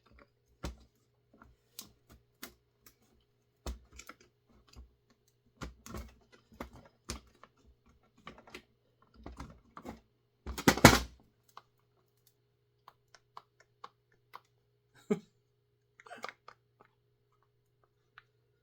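Irregular light clicks and taps of hand tools on the metal and plastic parts of a Husqvarna 350 chainsaw being taken apart, with a louder short clatter about two thirds of the way through.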